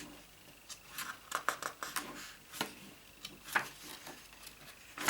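Paper handling: diary pages being turned and handled, a string of short rustles and light taps, the loudest about three and a half seconds in.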